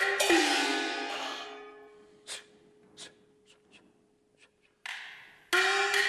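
Chinese opera percussion: a gong-and-cymbal crash whose pitch sinks as it fades over about a second and a half, then a few sparse sharp clicks over a faint held tone. Near the end a cymbal swish swells and the opera band strikes up with full music.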